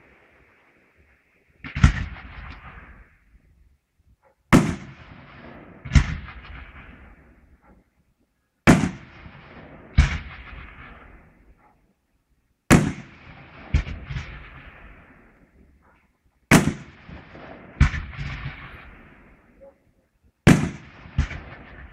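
Fireworks display shells exploding: loud bangs mostly in pairs about a second apart, a pair roughly every four seconds. Each bang trails off in a fading rumble and crackle.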